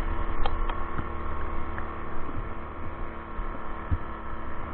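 Electric bike riding at speed: a steady hum from the drive system, several fixed tones, over a low wind rumble on the microphone.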